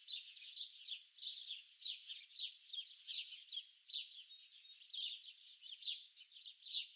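Many small birds chirping together in a dense chorus of short, quick chirps that slur downward in pitch, several a second and overlapping.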